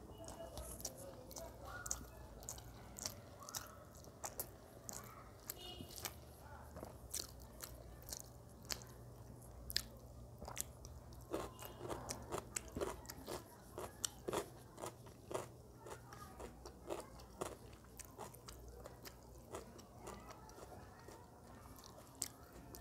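Close-up eating sounds of a person chewing mouthfuls of rice and curry eaten by hand: wet mouth clicks and smacks throughout, with a steady run of chewing strokes about halfway through.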